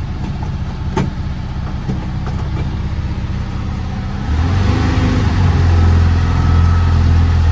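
VW Beetle's air-cooled flat-four engine running as the car is driven, getting clearly louder and deeper about four seconds in as it pulls harder. A single sharp click about a second in.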